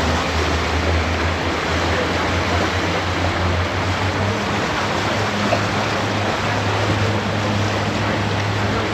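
Motorboat engine droning steadily under the rush of water along the hull and wind on the microphone; the engine hum rises slightly in pitch about four seconds in.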